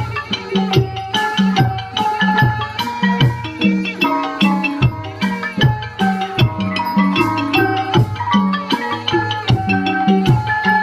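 Thai folk piphat ensemble playing: quick runs of struck, ringing melody notes over a steady beat on a pitched drum.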